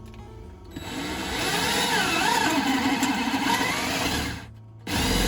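Power drill with a 3/4-inch bit boring a drain hole through the boat locker's fiberglass, the motor's pitch dipping and recovering under load. It cuts through quickly, stops about four and a half seconds in, then runs again briefly near the end.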